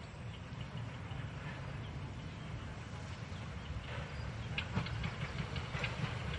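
Narrow-gauge steam train approaching, its low rumble slowly growing louder, with sharp clicks from the wheels and running gear starting about four seconds in.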